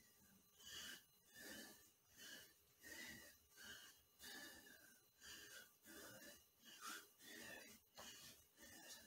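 A man's fast, heavy breathing during a high-rep bodyweight workout set, faint and breathy, about three breaths every two seconds in time with the reps.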